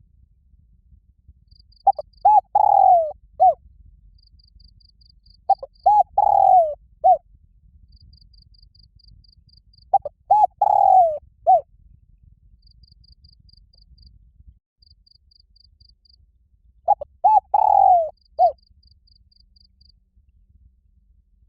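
Spotted dove giving its loud, ringing challenge coo four times, several seconds apart. Each call is a few short notes, then a longer falling coo and a short closing note. A cricket chirps faintly in short rapid trills between the calls.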